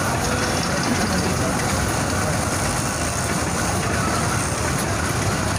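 Steady low rumble of street traffic and the stall's gas burner, with a steel spatula scraping and chopping egg on a flat iron griddle.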